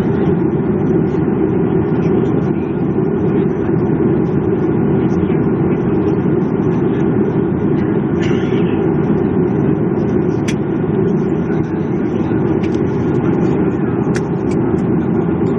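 Steady low drone of a vehicle's interior, running evenly throughout, with a few faint clicks in the second half.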